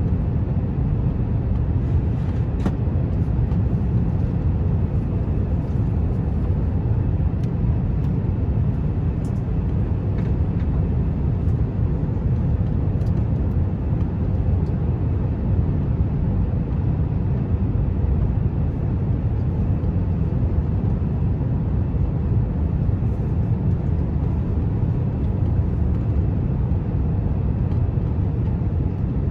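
Steady low rumble of airflow and engine noise inside the cabin of a Japan Airlines Airbus A350 on final approach with its landing gear extended, even throughout, with a few faint clicks.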